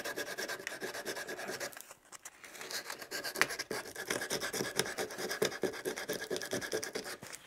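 Sandpaper rubbed by hand over carved wood in rapid back-and-forth strokes, with a short pause about two seconds in. It is sanding off excess hardened super glue from a filled crack.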